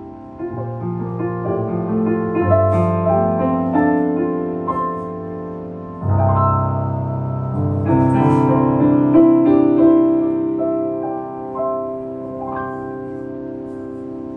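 Piano playing alone, a flowing passage of held chords and melody notes. A low chord about six seconds in lifts the level, and the notes fade toward the end.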